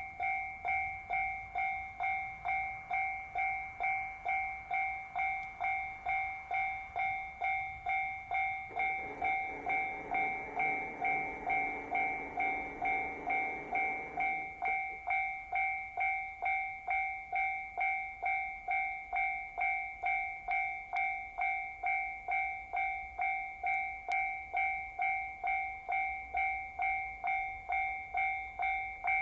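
Level-crossing electronic warning bell ringing in an even two-tone ding, about two strikes a second. About nine seconds in, a Kiha 261 series diesel limited express passes over the crossing for some six seconds, its rumble under the bell.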